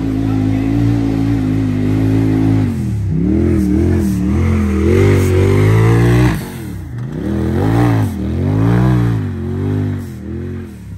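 Side-by-side UTV engine revving hard, its pitch rising and falling again and again as the throttle is worked, then dropping in level about six seconds in and carrying on with smaller swings.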